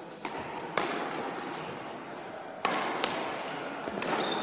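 Badminton rally: sharp racket strikes on the shuttlecock, echoing in a large hall. The loudest come about a second in and then twice close together near three seconds, with another near the end.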